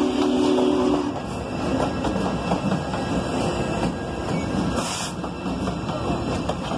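A chime train whistle held from the start and cutting off about a second in, then the steady rumble and clatter of the passing train's wheels on the rails, with a short hiss about five seconds in.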